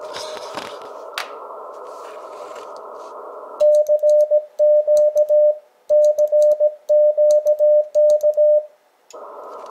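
Static hiss from a ham radio receiver's speaker gives way, a few seconds in, to a steady Morse code sidetone of about 600 Hz from an Icom IC-7300 transceiver, keyed by hand on a brass Morse key in several groups of dots and dashes as the station transmits CW. The hiss cuts out while the key is sending and comes back just before the end as the radio returns to receive.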